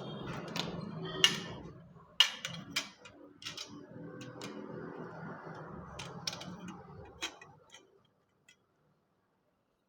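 Sharp metallic clicks and taps of a hand tube bender being worked on a copper AC pipe, over a steady low hum. The sound stops about eight seconds in.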